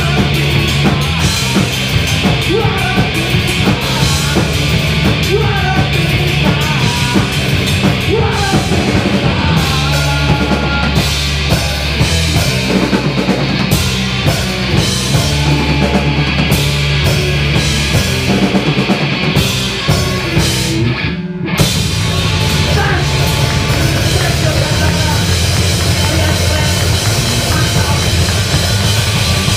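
Live rock band playing loud: electric guitar and drum kit, with a vocalist on the microphone. The band breaks off for a moment about twenty-one seconds in, then comes straight back in.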